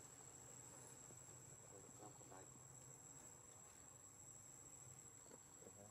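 Insects making a faint, steady, high-pitched trill over an otherwise near-silent background, with faint distant voices twice.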